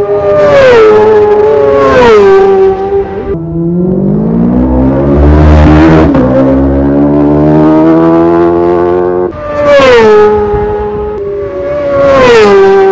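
Racing motorcycles passing at full speed one after another, each engine note dropping sharply in pitch as it goes by. In the middle, one bike's engine climbs steadily in pitch as it accelerates past.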